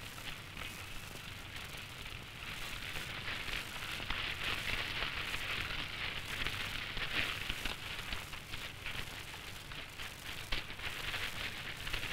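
Fire burning with dense, continuous crackling, growing a little louder about two seconds in.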